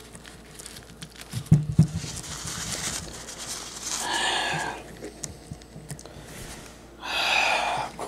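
A crumpled paper towel rustling as it is handled and dabbed against a baked polymer-clay figure, with two soft knocks about one and a half seconds in and longer rustles around four and seven seconds in.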